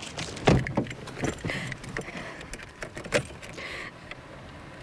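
Handling sounds around a car: a low thump about half a second in, then scattered clicks and knocks with a jingle of keys.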